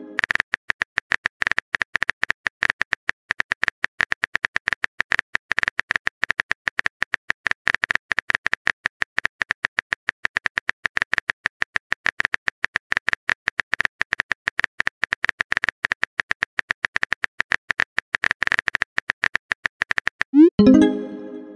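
Texting-app keyboard typing sound effect: rapid, irregular clicks as a message is typed. About a second before the end comes a short rising pop and chime as the message is sent.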